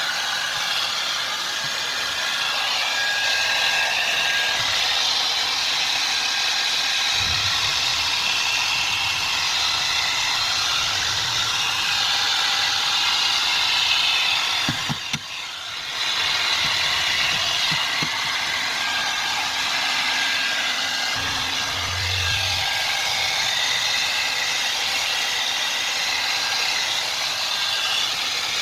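A steady whirring noise like a small motor or blower, with a brief dip about halfway through and a few low thumps around it.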